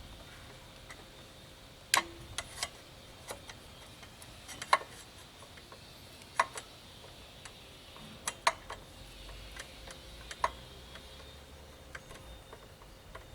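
Scattered, irregular clicks and light clinks of metal tools and brake parts being handled, about a dozen in all, some sharper than others.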